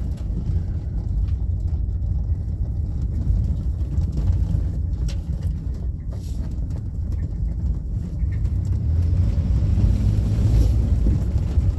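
Oldsmobile Bravada's 4.3-litre Vortec V6 running under load as the SUV drives slowly in first gear, a steady low rumble that grows a little louder near the end. The engine has a worn rod bearing.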